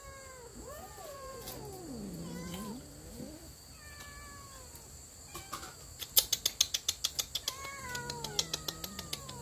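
Cats yowling in long, wavering calls that slide up and down in pitch. About six seconds in comes a quick run of a dozen or so sharp clicks, the loudest sound here.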